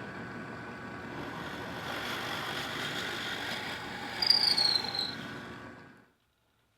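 A power tool motor running steadily, with a short high squeal that drops in pitch about four seconds in, then winding down and stopping near the end.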